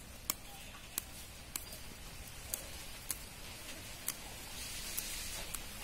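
Fresh mint being plucked off its stems by hand: small sharp snaps of the stems, roughly one every half second to a second, over a faint rustle of leaves.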